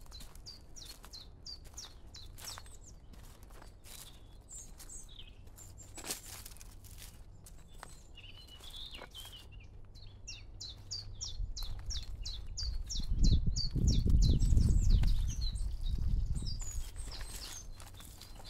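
Songbird singing long runs of short, high, quickly repeated notes, about three to four a second, over footsteps on a path. In the second half a low rumble swells up, becomes the loudest sound for a few seconds, then fades.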